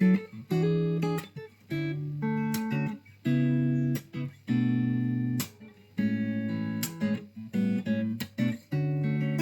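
Fender '72 reissue electric guitar played with a clean tone: a series of short chords, each let ring briefly, with small pauses between them.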